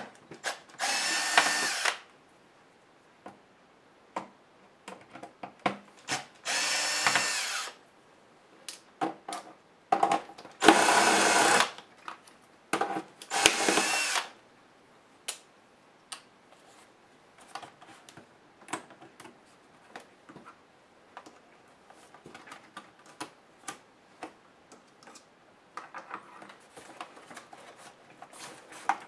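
Cordless power screwdriver whirring in four short runs of about a second each as it backs screws out of a laptop's case. Between and after the runs come scattered small clicks and taps from screws and plastic parts being handled.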